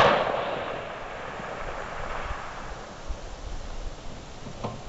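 A single hunting rifle shot, a sharp crack followed by a long rolling echo that fades over about three seconds. A short faint click comes near the end.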